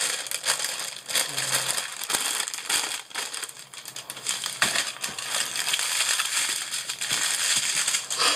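Small plastic bags of diamond painting resin drills crinkling and rattling as they are handled and spread out on a cutting mat, a steady run of small crackles and clicks.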